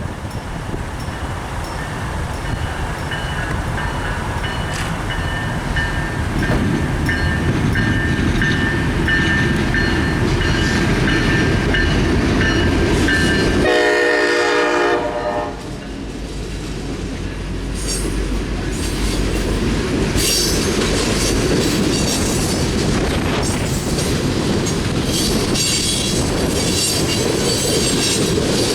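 EMD T4 diesel locomotive leading a coal train: its horn sounds a long steady chord for about eleven seconds as it draws closer, and the sound grows louder. The horn cuts off about halfway, and the locomotive and coal cars then roll past with clattering wheels on the rail joints.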